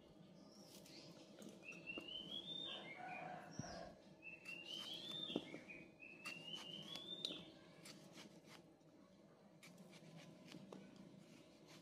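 A bird calling faintly in the background: three rising whistled notes, each climbing over about a second, in the first half. Faint scattered clicks come from a small knife cutting a tomato held in the hand.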